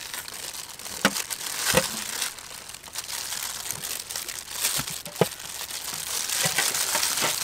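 White-fleshed dragon fruit being peeled by hand: the skin tearing away from the flesh, with crinkling and a few sharp clicks.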